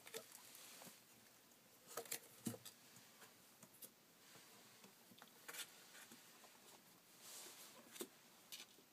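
Faint scuffling and scratching of three-week-old kittens crawling and clambering over one another on a carpet, with scattered soft clicks and rustles, a few sharper ones about two seconds in and near the end.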